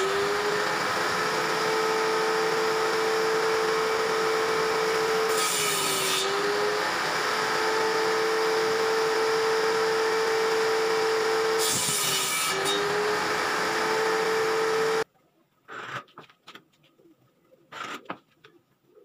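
Table saw with its blade mounted through a plywood bench top, running with a steady hum while ripping wood strips. At the start and again about 6 and 12 seconds in, the blade bites into the wood with a burst of hissing cutting noise and the motor's pitch dips under the load, then recovers. About 15 seconds in the saw sound cuts off, leaving faint scattered knocks.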